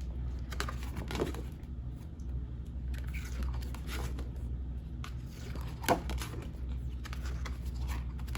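Pages of a paper desk calendar being handled and turned, with scattered soft rustles and taps, one sharper tap about six seconds in, over a steady low hum.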